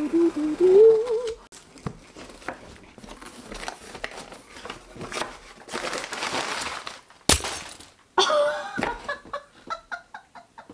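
Brown packing paper rustling and crinkling as it is pulled out of a cardboard box, with one sharp crack about seven seconds in. A short hummed rising tune comes before it, and a gasp and laughter follow near the end.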